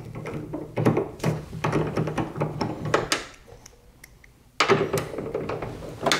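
Clicks and knocks of a hand, tool and screw working inside a 2000 Chevy Silverado door shell while a window-track screw is fitted. A busy clatter at first, a pause of about a second and a half, then a louder bout of knocking near the end.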